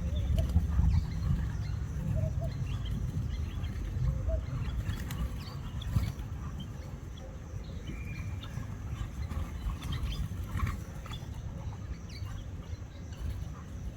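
Small birds chirping in short scattered calls over a steady low rumble, with one longer held whistle about two-thirds of the way through and a couple of soft knocks.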